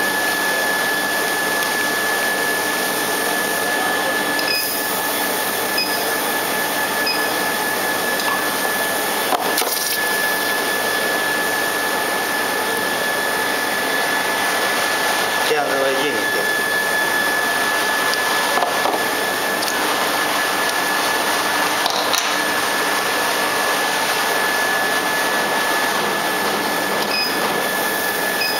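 Electric heat-treating equipment running with a steady hiss and a constant high-pitched whine, with a few faint ticks and knocks.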